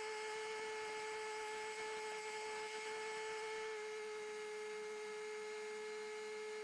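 Compact tractor travelling at a steady speed with a loaded front-end loader bucket: its drivetrain gives a steady high-pitched whine that holds one pitch.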